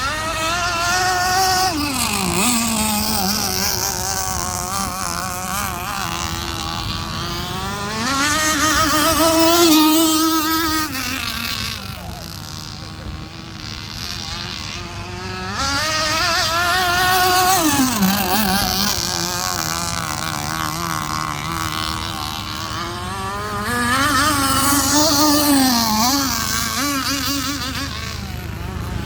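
Petrol-engined radio-controlled boat running at high revs, its whine rising and falling in pitch as the throttle opens and closes. It gets louder four times as it passes, with sharp pitch drops after the second and sixth seconds and again near the eighteenth.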